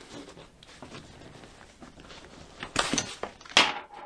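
Handling noise from a Cordura fabric bag being opened: faint rustling, a few scrapes about three seconds in, then one short, sharp rasp of fabric near the end.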